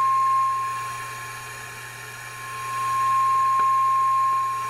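Steady single-pitch test tone picked up by a handheld signal-tracer probe held near the equalizer's output transistors and played back through its amplifier. It fades about a second and a half in, swells again around three seconds, and fades near the end as the probe moves. The tone shows lots of signal at the output of the working channel.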